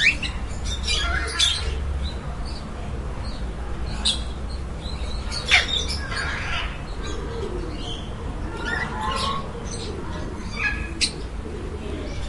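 Parakeets chirping and squawking in short, scattered calls, with pigeons cooing lower underneath and a steady low rumble in the background.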